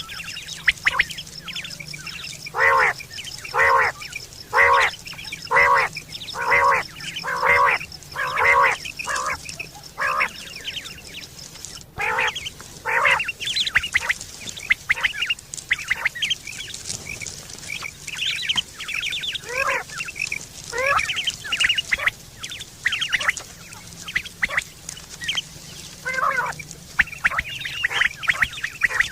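Quail calling, as played for hunting and to attract mates. It gives a string of evenly spaced calls about once a second, then a quicker, more irregular run of sharp chirps.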